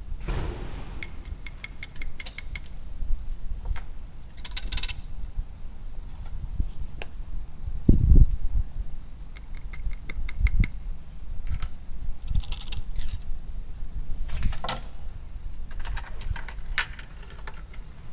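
Small clicks, clinks and rattles of muzzle-loading gear being handled as a black-powder pistol is charged: a powder tube and funnel knocking against the barrel. A dull thump comes about eight seconds in.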